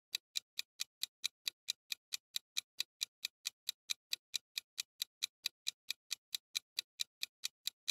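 Countdown-timer clock ticking sound effect: light, even ticks, about four a second, marking the time left to guess.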